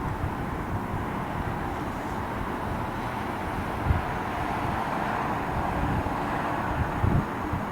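Steady, distant drone of a vehicle or aircraft, swelling slightly past the middle, with wind buffeting the microphone.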